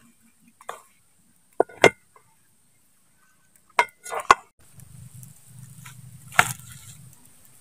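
Wooden spatula knocking and scraping against a metal cooking pot while stirring a boiling soup, a few sharp knocks spread out, with a low steady rumble setting in about halfway through.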